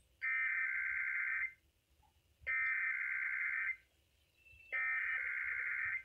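Three bursts of the EAS/SAME digital header, a warbling data tone, each about 1.3 s long with about a second between them, played through a weather alert radio's speaker. This is the coded header of a Required Weekly Test sent by NOAA Weather Radio.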